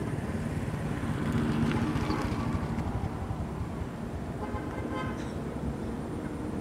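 Outdoor road-traffic noise: a steady low engine rumble, with short pitched tones about one and a half and five seconds in.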